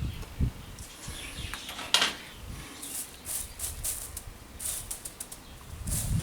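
Bonsai tools at work: one sharp click about two seconds in, then a run of short, hissy snips and rustles as wire and twigs are cut.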